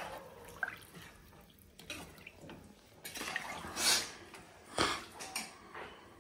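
Watery rice and chicken masala sloshing and splashing as a spoon stirs it in a pressure cooker, in irregular swishes, with one sharp knock just before five seconds in.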